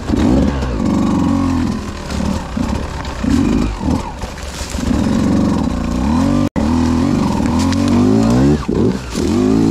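Beta 200RR two-stroke dirt bike engine revving up and falling back again and again as the throttle is worked in short bursts. The sound cuts out for an instant about six and a half seconds in.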